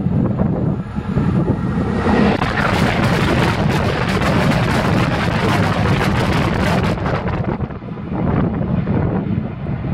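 Fast train passing directly over the rails, heard from the track bed beneath it: a dense rush of wheel and air noise with rapid wheel clicks that builds about two seconds in and falls away about seven seconds in, over a steady low rumble.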